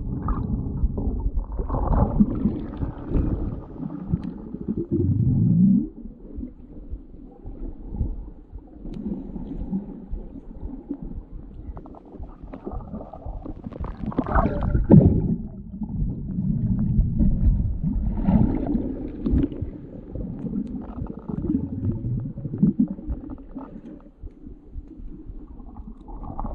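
Muffled underwater water sounds: uneven sloshing, gurgling and bubbling around a submerged camera.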